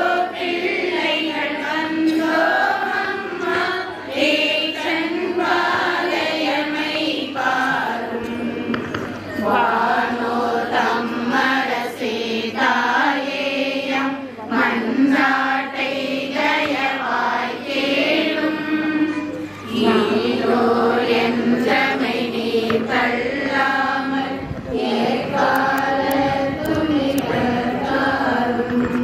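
A group of voices singing a Tamil church hymn in long, continuous phrases with short breaths between them.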